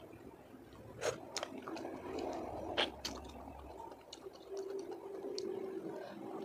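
Close-up eating sounds of spicy golden apple snails: wet mouth noises as the meat is picked out and chewed, with a scatter of sharp clicks from the shells, the two loudest about one and three seconds in.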